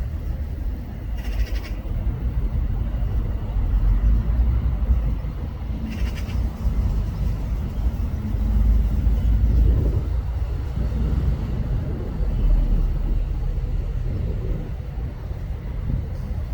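Wind buffeting the microphone, giving a loud, uneven low rumble that swells and fades. Two brief high-pitched calls cut through it, about a second in and about six seconds in.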